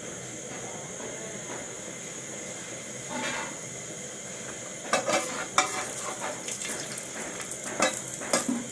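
Bread frying in hot oil in a pan, with a steady sizzle. From about five seconds in, a utensil knocks and scrapes against the pan several times as the bread is worked.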